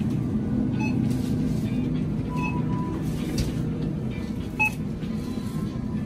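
Supermarket room sound: a steady low hum with music playing over it and a few short high tones.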